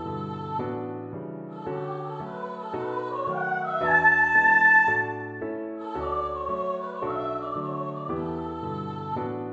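Computer playback of a song score for voice and piano in D major: a wordless sampled voice carries the melody with vibrato over repeated piano chords. The melody swells to a loud held high note about four seconds in, then eases back.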